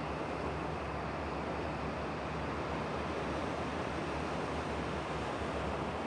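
Steady rushing of sea surf washing over a rocky shore, an even noise with no single wave break standing out.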